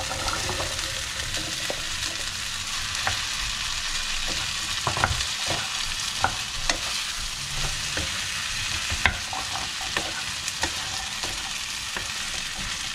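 Chopped asparagus frying in a non-stick pan with onion and tomato, a steady sizzle, while a wooden spoon stirs it, giving scattered knocks and scrapes against the pan.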